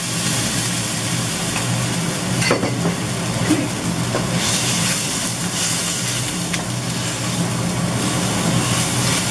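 Thin beef slices sizzling in a stainless steel wok as they are stir-fried with a wooden spatula, a ladleful of liquid just added because the starch-coated meat had begun to stick. A steady low hum runs underneath the sizzle.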